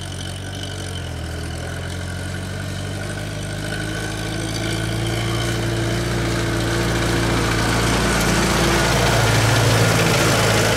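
International Harvester 2444 tractor engine running steadily as the tractor drives up. It grows louder over the last several seconds as it comes close and passes.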